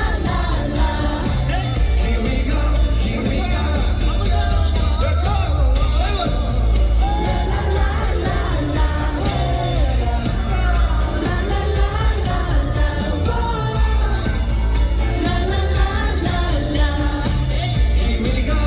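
Live K-pop song: male vocals singing over a pop track with heavy, steady bass, played through a concert sound system.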